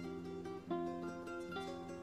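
Soundtrack music on a plucked guitar, single notes picked one after another over sustained lower notes in a slow, gentle line.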